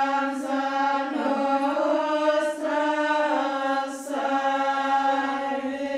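A group of nuns and novices chanting together in unison, unaccompanied, mostly on one held reciting note with a few small steps in pitch.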